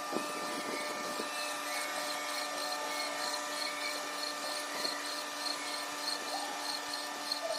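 Portable line boring machine running, its rotating boring bar cutting a bore: a steady machine whine with a faint high tick about three times a second.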